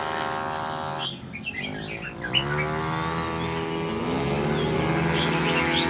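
Race car engines running, with one accelerating: its pitch climbs from about two seconds in and then holds high.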